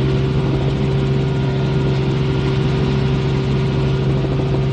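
Helicopter in flight: the steady drone of its engine and rotor, with a fast low throb underneath, holding even throughout.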